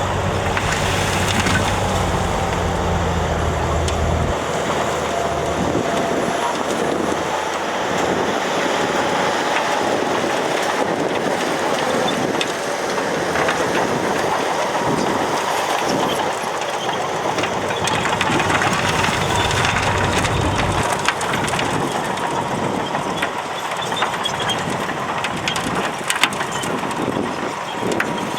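Heavy earthmoving machine working dirt: a diesel engine running under a continuous crunching, grinding noise of soil and gravel being scraped and pushed. A few sharp cracks come near the end.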